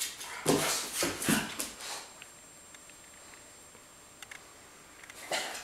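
American Bulldog puppy at play on a wooden floor: a few short, noisy bursts of scuffling in the first two seconds, then a quiet stretch with a few light taps, and the noise picks up again near the end.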